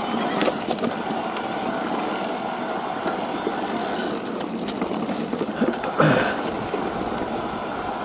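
Focus Jam2 electric mountain bike riding along a rough bush trail: a steady rush of tyres on dirt and brush, with scattered small clicks and rattles. A brief louder swell comes about six seconds in.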